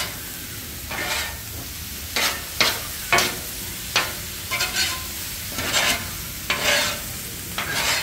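Diced chicken sizzling on a flat-top steel griddle while a metal spatula and slotted turner scrape and clack against the plate, about a dozen strokes at an uneven pace of one or two a second.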